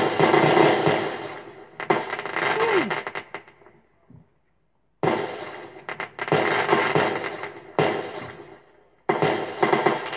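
Fireworks going off in several bursts of rapid crackling bangs, each starting abruptly. There is a short falling whistle about two and a half seconds in and a second of silence about four seconds in.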